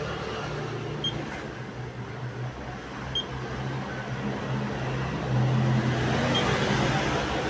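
Canon imageRUNNER photocopier running, a steady mechanical hum that grows louder about five seconds in.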